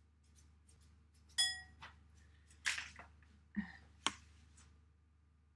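Eggshell knocked on the rim of a ceramic mixing bowl, a ringing clink about a second and a half in. Then comes a short crackle of shell and a few light knocks and clicks as the egg is cracked and separated.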